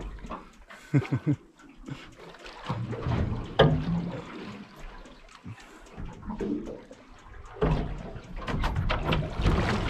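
Seawater sloshing and slapping against the side of a boat hull, with a sharp knock about three and a half seconds in and a louder low rumble over the last two seconds.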